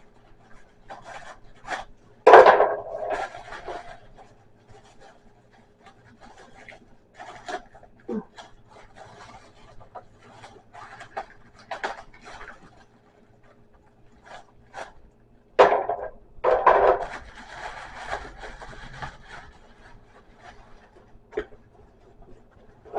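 Plastic packaging being rustled, crinkled and pulled open by hand as small plastic game accessories are unwrapped, with scattered clicks and knocks of handling. The loudest crinkling bursts come about two seconds in and again around sixteen seconds in.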